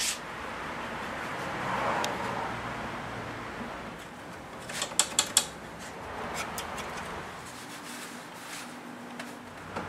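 Pipe clamps being set and tightened on a glued-up crack in a wooden desk case: metal handling noise with a quick cluster of three or four sharp metal clicks about five seconds in, over low steady shop noise.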